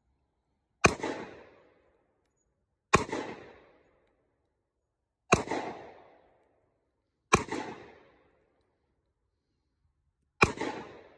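Five single gunshots from a handgun, spaced two to three seconds apart. Each shot is a sharp crack followed by about a second of echo dying away.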